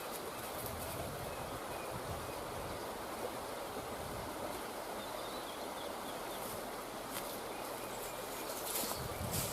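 Woodland ambience: a steady background hiss with faint bird chirps now and then, a few small clicks, and louder rustling near the end.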